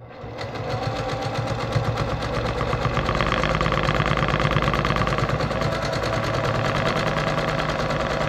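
Brother PQ1500SL straight-stitch sewing machine running fast and steadily, stitching free-motion through a quilt sandwich. It starts right away and builds up speed over the first second.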